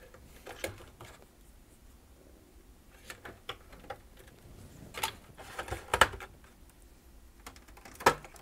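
Scattered plastic clicks and knocks of a VCR's main circuit board and plastic chassis parts being handled and swung open, with a louder cluster about five to six seconds in and another sharp click just after eight seconds.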